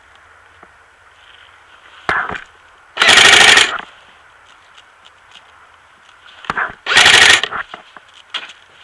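Airsoft electric gun, an H&K MP5 replica, firing two short full-auto bursts about four seconds apart, each under a second long, with a quicker, quieter rattle just before each.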